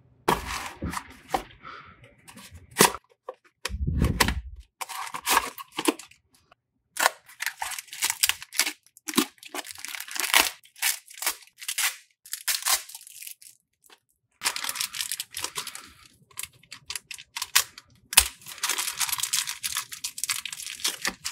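Handling and opening of a Beyblade X booster's cardboard box and the black plastic bag inside: irregular rustles, crinkles and clicks of card and plastic, with a dull bump about four seconds in. Longer stretches of the plastic bag crinkling and tearing open come near the end.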